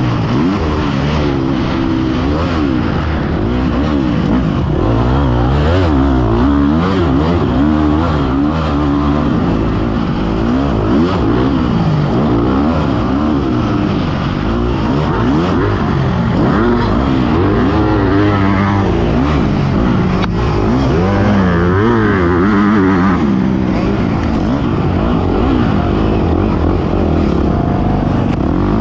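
Dirt bike engine at race pace, heard from on board the bike, revving hard with its pitch rising and falling again and again.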